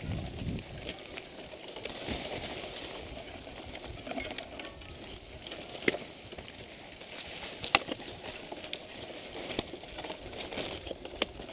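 Mountain bike riding on a rough dirt singletrack: tyres on dirt and the bike rattling, with irregular clicks and two sharp knocks over bumps about six and eight seconds in, and leaves brushing past the bike.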